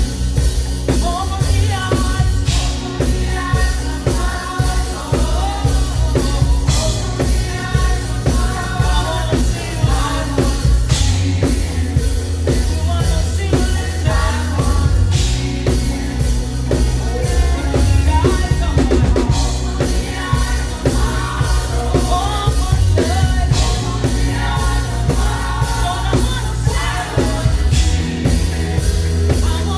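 Praise band playing live: a drum kit with a cymbal crash about every four seconds, a deep bass line, and singing.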